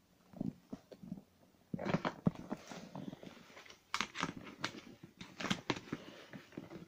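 Handling noise from a camera being moved and repositioned by hand: irregular rustling and scraping with several sharp clicks and knocks, starting about two seconds in.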